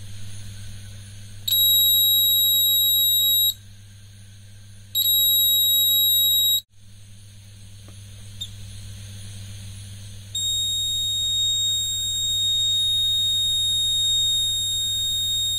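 Homemade rain alarm's buzzer sounding one steady high beep, set off as its razor-blade water sensor is bridged. It sounds twice for about two seconds each, then comes on again about ten seconds in and stays on. A steady low hum runs underneath.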